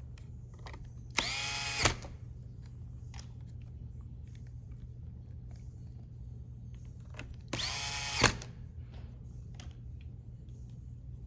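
Small electric screwdriver driving screws, most likely the laptop's hinge screws going back in: two short whirring runs several seconds apart, each dropping in pitch as it bites and ending in a sharp click as the screw seats.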